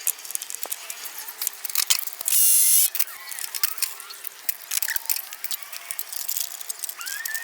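Metal hand tools and parts clinking and clattering during work on a car's front wheel hub and suspension, with a loud, high-pitched half-second burst about two seconds in.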